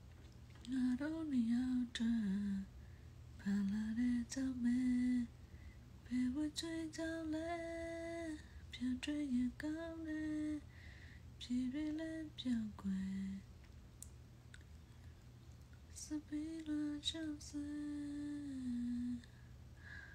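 A woman softly humming a slow tune, in several short phrases of held, gently gliding notes with brief pauses between them.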